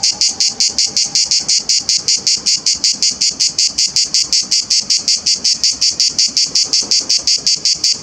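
Cicada singing: a loud, high-pitched song of short rasping pulses repeated evenly at about six a second.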